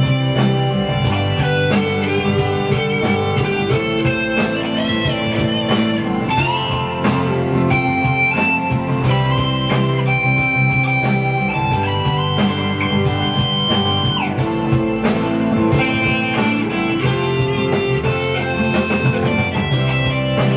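Electric guitar playing a lead line: plucked notes, several bent upward and held for a second or more, over steady low notes.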